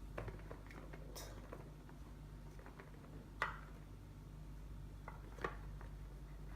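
Faint clicks and taps of plastic Play-Doh toy parts being handled and fitted together, a few sharp ones spread out, the loudest about three and a half seconds in and again near the end, over a steady low hum.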